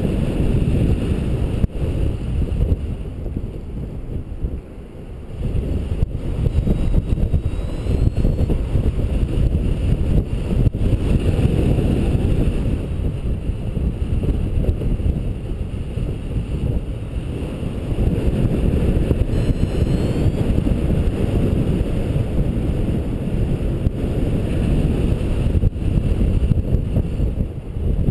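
Airstream buffeting the microphone in paraglider flight: a loud, gusting low rush that swells and eases, dropping briefly about four seconds in.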